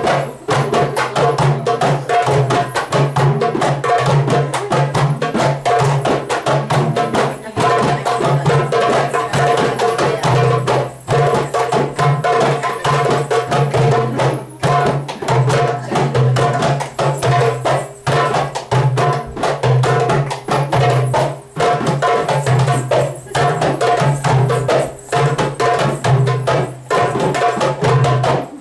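Darbuka (goblet drum) drum solo for belly dance: a fast, dense rhythm of sharp hand strikes over a deep, sustained low tone, stopping abruptly near the end.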